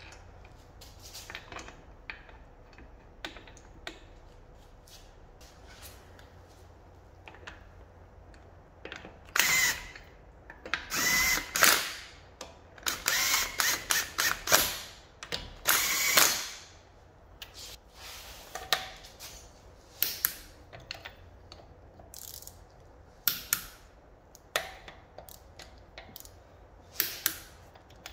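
Cordless impact wrench running wheel nuts onto an alloy wheel in a string of short trigger bursts, loudest from about nine to seventeen seconds in. Before that come light metallic clicks as the nuts are fitted by hand, and afterwards a few separate sharp clicks from a ratchet torque wrench tightening the nuts.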